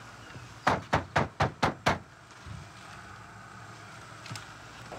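Six quick knocks on a mobile home's front door, about five a second, starting just under a second in.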